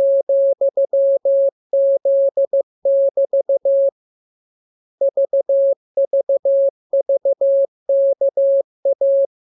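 Morse code sent as a single steady tone of about 600 Hz, keyed on and off in dots and dashes that form letter groups, with a pause of about a second near the middle: a receiving-practice transmission.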